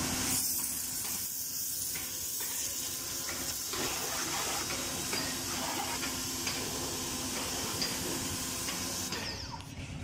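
Hyundai 105-bar, 1400 W electric pressure washer spraying a high-pressure water jet onto a concrete floor: a steady hiss of spray, thinning out near the end.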